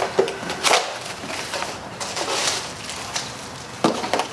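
Small cardboard box opened by hand and a boost gauge in plastic wrapping pulled out: rustling and scraping, with sharper rips or knocks about three-quarters of a second in and again near the end.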